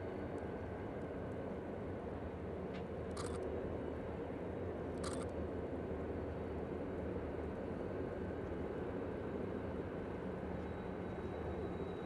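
Distant rumble of Norfolk Southern diesel freight locomotives running steadily as the train rolls across the bridge. Two brief scrapes, about 3 and 5 seconds in, from the camera being handled.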